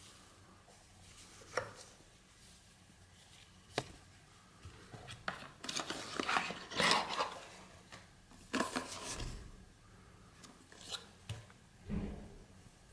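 Cardboard box being opened and handled by hand: scattered clicks and taps, with bursts of rustling and scraping that are busiest around the middle.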